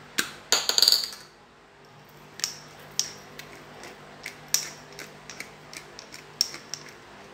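Built-in grinder cap of a spice bottle being twisted to grind seasoning, clicking: a quick run of clicks about a second in, then single clicks roughly every half second to a second.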